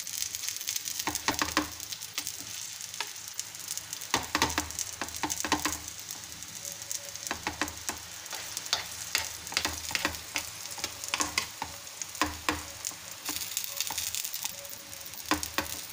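A batter-coated bread slice sizzling steadily in hot oil in a frying pan, with repeated clicks and scrapes of a metal spoon spreading gram-flour batter over its top.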